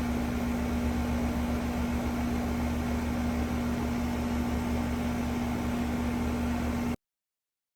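Tempstar air conditioner running: a steady electric hum over a low pulsing rumble and a fan-like hiss, cutting off suddenly about seven seconds in.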